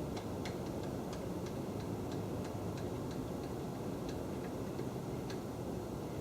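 Light ticking clicks, about two or three a second and unevenly spaced, over a steady low hum.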